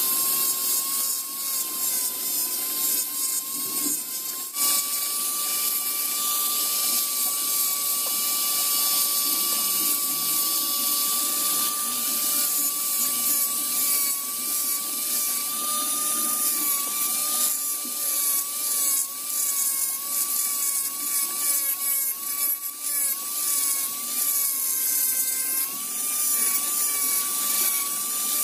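Mini rotary engraving grinder running with a steady high whine as its small burr grinds into a sonokeling wood knife handle, with a scratchy scraping hiss from the cutting. The whine steps up a little about four seconds in, then wavers and dips in pitch as the burr is pressed into the wood.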